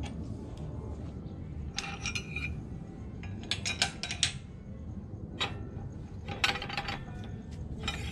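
Metal clinking and clicking in several short clusters as the steel pins, dies and round steel tube of a JD2 manual tube bender are handled, over a steady low rumble.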